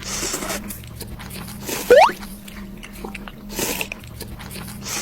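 Animation sound effects: crunchy, chewing-like noise bursts, with a quick rising whistle about two seconds in, over a steady low hum.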